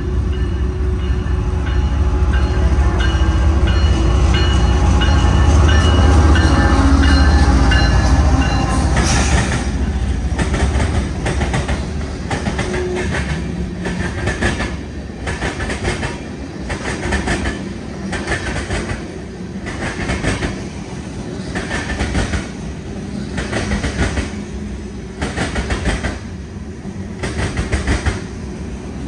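A diesel-hauled freight train passing close by. For the first nine seconds the locomotives go by with a deep, loud engine rumble. Then the freight cars, tank cars followed by gondolas, roll past with a rhythmic clickety-clack of steel wheels over the rail joints, about once a second.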